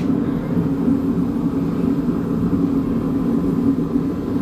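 Steady low mechanical drone that holds an even level throughout, with no distinct strikes or clicks.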